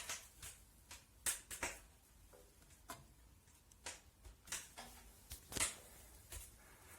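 About a dozen irregular, sharp crackles and clicks at uneven spacing, over a faint low hum.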